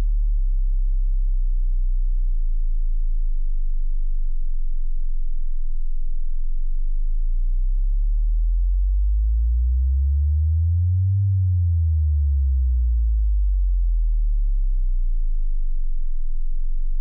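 Deep electronic sine tones: a steady low hum, with a second tone that glides up in pitch to about the middle and back down, the two beating slowly against each other.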